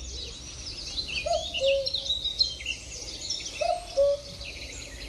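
A cuckoo calling its two-note "cu-coo", falling in pitch, twice, over a steady background chorus of small birds chirping.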